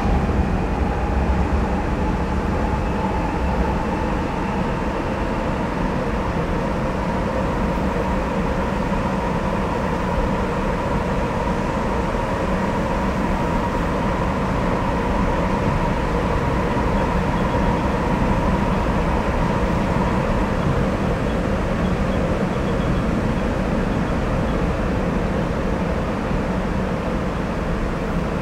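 Sapporo Municipal Subway Toho Line 9000-series rubber-tyred train running between stations, heard from inside the car. A steady rumble carries a level whine that fades out about twenty seconds in.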